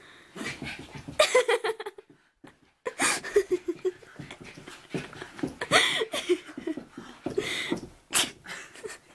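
Small fluffy dog playing rough with a person, making a string of short breathy huffs and brief low vocal noises.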